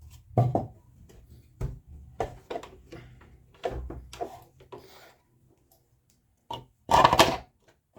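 Plastic sewing-machine cover parts being handled against the machine's plastic casing: scattered light clicks and knocks, with a louder clatter about seven seconds in.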